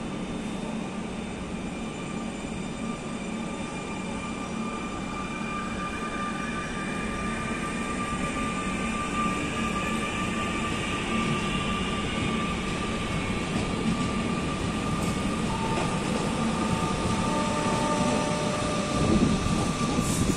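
PESA Elf electric multiple unit pulling away from the platform. Its motors give a rising whine as it picks up speed over a steady tone, and the rolling rumble of the wheels grows louder toward the end.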